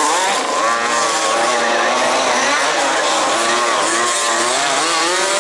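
Several 1/5-scale RC off-road racing cars' small two-stroke petrol engines running together, each revving up and easing off around the track, so that their overlapping buzzing pitches rise and fall.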